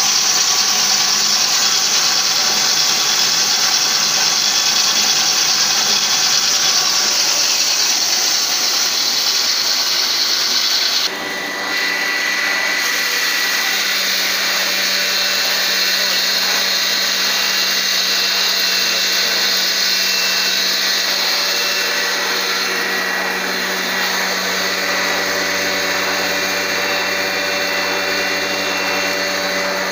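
Small combined grain mill and huller running steadily, with a loud hissing rush as grain feeds through it. About eleven seconds in the sound dips briefly, then a steady hum joins it.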